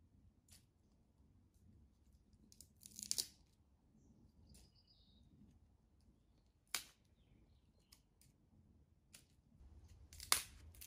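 Sparse snaps and rustles of hands-on camp work around a wood fire: a short crackling cluster about three seconds in, a single sharp click near seven seconds, and another crackle near the end, with quiet in between.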